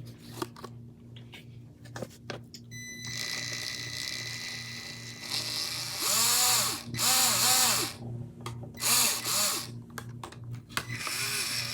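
Traxxas TRX-4M RC crawler's small electric motor and geared drivetrain, fitted with Injora metal driveshafts, whining under throttle. A steady whine starts a few seconds in, then comes in several louder bursts that rise and fall in pitch as the throttle is worked on and off.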